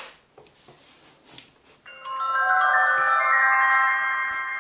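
Fisher-Price Quizard electronic toy playing a magical bell-like chime through its speaker: about two seconds in, notes enter one after another and ring together as a held chord for nearly three seconds, then stop. Faint plastic handling clicks come before it.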